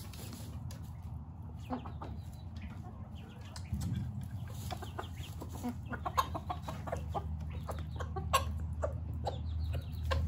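Silkie chickens clucking in a run of short, separate clucks that grow busier through the second half.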